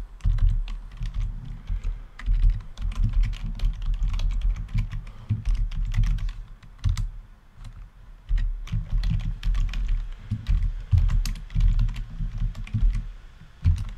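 Typing on a computer keyboard: quick irregular keystrokes in bursts, with a short lull a little past halfway.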